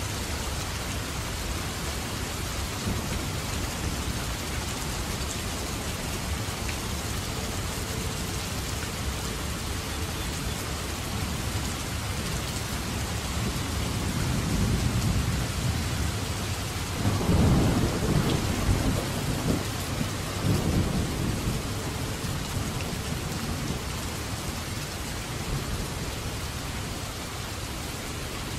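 Heavy, steady rain with a rolling peal of thunder: the rumble swells about halfway through, breaks into a few loud low surges, then dies away under the rain.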